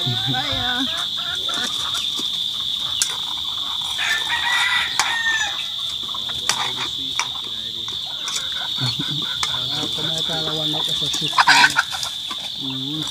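Chickens clucking and a rooster crowing, over a steady high-pitched hum, with a short louder call near the end.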